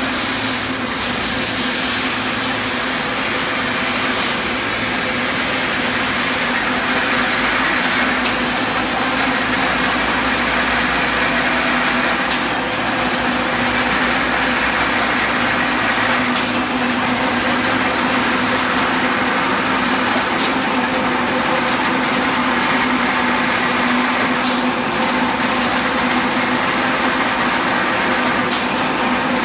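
Automatic steel wire straightening and cutting machine running steadily, a constant mechanical hum from its rotating straightener, with faint knocks about every four seconds.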